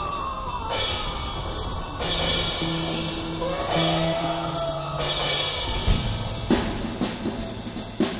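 Background music: a drum kit and held bass notes under slowly sliding high notes, with a run of drum hits in the last couple of seconds.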